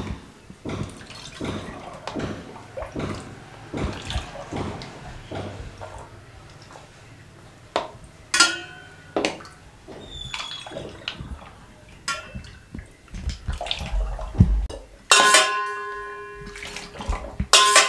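Mango juice poured from a steel ladle through a plastic funnel into glass bottles, with the ladle knocking against the stainless steel pot. Near the end, two loud strikes leave the metal ringing for a couple of seconds.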